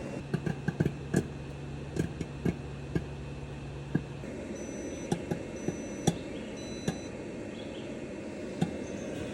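Popcorn popping in a running microwave oven: sharp, scattered pops over the microwave's steady hum. The hum stops about four seconds in, three short high beeps follow, and a few more pops come after.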